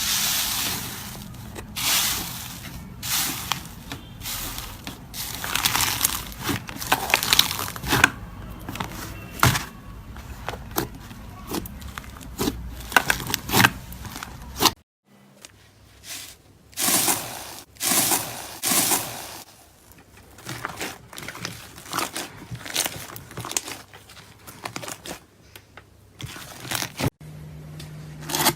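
Slime being pressed, stretched and poked by hand, giving irregular bursts of sticky, crackly handling noise with many sharp little clicks and pops. The sound cuts out abruptly about halfway and the handling starts again.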